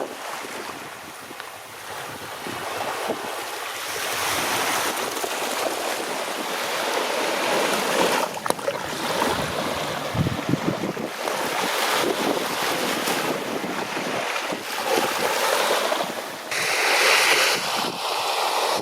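Water splashing and sloshing around a paddled kayak, with wind buffeting the microphone. The noise swells and fades every second or two and is loudest near the end.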